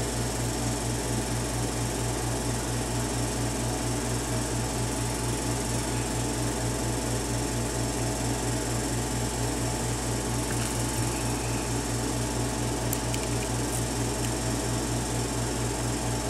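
A steady low mechanical hum with a fast, even pulse, like a small motor or fan running. A few faint light clicks come in the second half.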